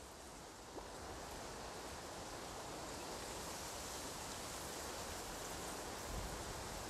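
Steady wind on the microphone with dry reeds and grass rustling, a continuous rushing noise with low rumble underneath.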